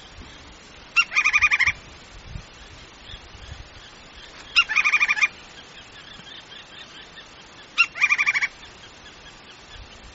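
Woodpecker calling three times, each call a sharp opening note followed by a quick run of about eight notes.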